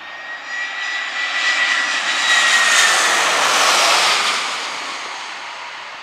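Airbus A320-family jetliner passing low overhead on landing approach, gear down. The jet engine noise swells to a peak about three seconds in and then fades as it goes by, with a high engine whine that drops slightly in pitch as it passes.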